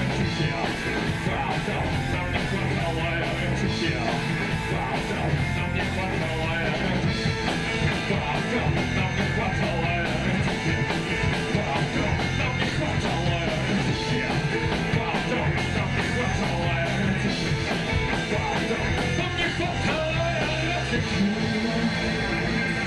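Live rock band playing loud in a small club: electric guitar, electric bass and drum kit.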